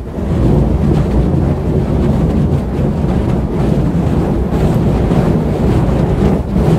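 Burning fire poi whooshing through the air as they are spun: a loud, steady rush of flame and air with faint repeated swells as the heads pass.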